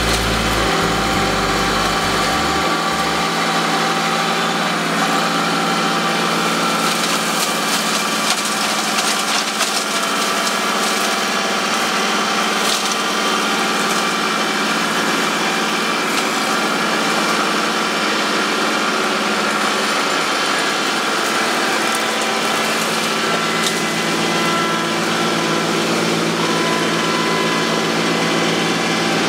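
Kubota B2261 compact tractor's diesel engine running steadily while the front-mounted Peruzzo Scorpion 1400A flail mower spins, mulching dry leaves and twigs. Sharp ticks and cracks of debris striking the flails are heard through the middle.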